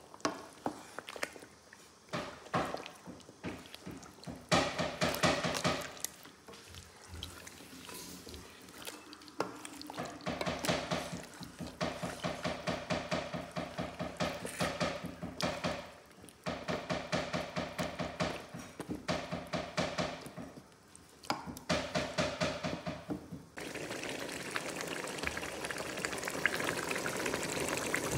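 Wooden spoon stirring thick chicken stew (doro wat) in a metal pot, wet stirring sounds coming in rhythmic spells. From about 23 seconds in, a steady bubbling sizzle as the stew simmers.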